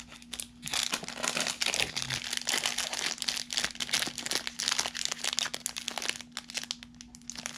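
Clear plastic snack wrappers crinkling as two individually wrapped donut sticks are pulled from a box and handled, a dense run of rapid crackles that eases off about six seconds in.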